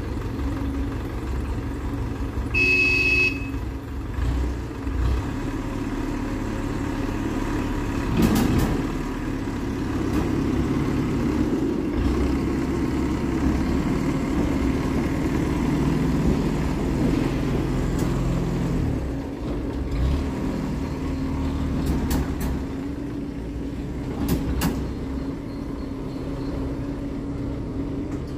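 Engine of a narrow-gauge petrol railcar running steadily as it moves off along the track, with a brief high horn toot about three seconds in and a few sharp clicks.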